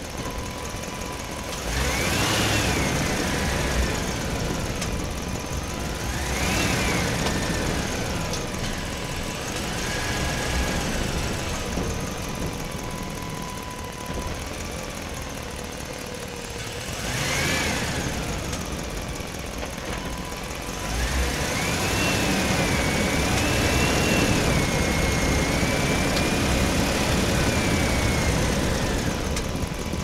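Truck driving through a parking structure, its engine running steadily and swelling louder at times. High-pitched whines rise and fall four times briefly, then one long wavering whine runs through the last third.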